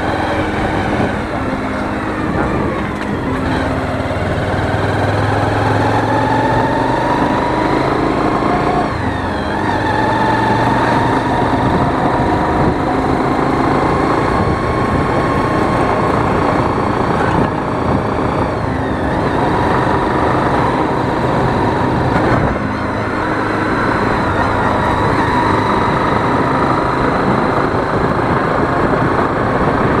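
Motorcycle engine running steadily while riding along a road, heard from on board, with its pitch drifting gently up and down as it speeds and slows, over road and wind noise.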